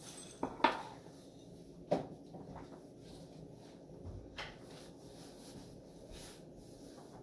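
A few sharp knocks and clunks, two close together about half a second in (the second the loudest), another near two seconds, and a fainter click past four seconds.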